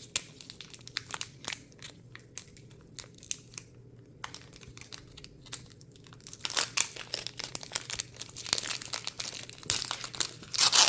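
A foil trading-card booster pack being handled and torn open: scattered light crinkles and clicks at first, then dense crinkling of the foil wrapper from about six seconds in, loudest near the end.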